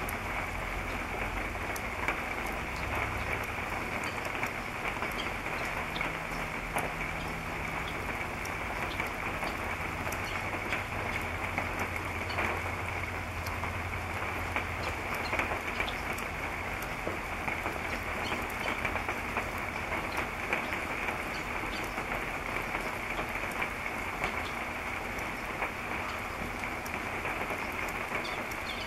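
Steady rain falling, with many small, sharp ticks of drops landing.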